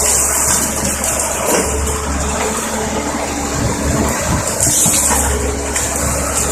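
Caterpillar 320D tracked excavator working: its diesel engine runs steadily under a broad hydraulic rush, with a higher hiss swelling near the start and again about five seconds in.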